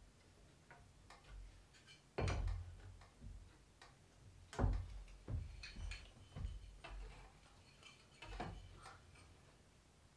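Hand tools being handled against an old wooden table board: several separate knocks and taps, the loudest about two seconds in and about four and a half seconds in, with faint light ticks between.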